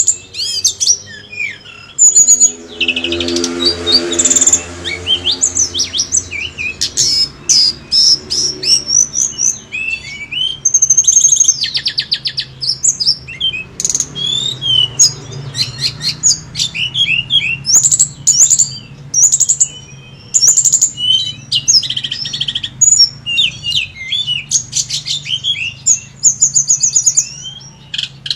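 Tledekan gunung birdsong in full, vigorous voice: a fast, unbroken run of high, varied chirps, trills and twitters. This is the song used as a lure to set a kept bird singing.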